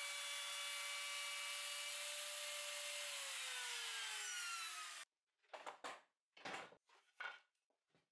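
A Bosch plunge router running at a steady whine while a pattern bit routes a dado in plywood. About three seconds in, its pitch falls steadily as the motor winds down, and the sound cuts off suddenly about five seconds in.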